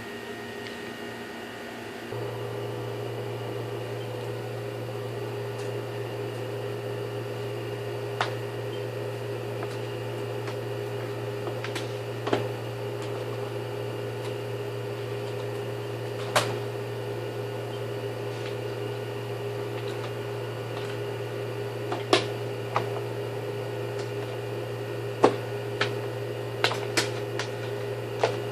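A steady electrical hum that switches on about two seconds in, with scattered sharp clicks and taps of tools and parts as a vacuum cleaner motor is opened up, several clicks close together near the end.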